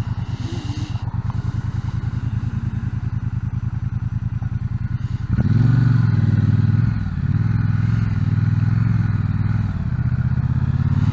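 Triumph T120 parallel-twin motorcycle engine running at low revs with an even pulse. About halfway through it gets suddenly louder as the bike pulls away, the note rising and dipping twice as it goes up through the gears.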